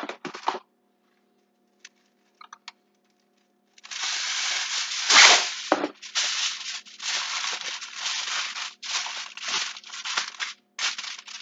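Aluminium foil being pulled off the roll, torn and crinkled, starting about four seconds in as a run of crackly bursts, the loudest about five seconds in.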